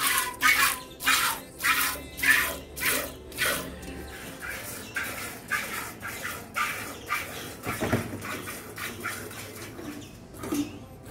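Hand-milking a cow: streams of milk squirting from the teats into an aluminium pot of frothy milk, a rhythmic hiss at about two squirts a second from alternating hands, loudest in the first few seconds.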